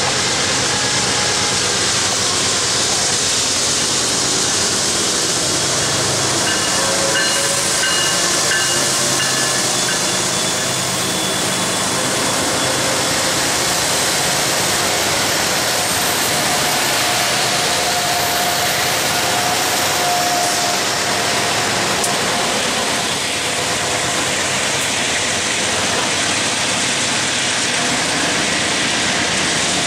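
BNSF double-stack container freight train passing close by: first its diesel locomotives, then the stack cars, in a loud, steady rumble and rattle of wheels on the rails. Faint thin tones come and go over it.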